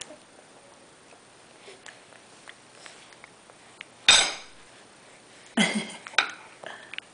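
Faint small clicks and smacks of a baby eating, then two sudden loud bursts: a sharp one about four seconds in and a longer, ragged one about a second and a half later.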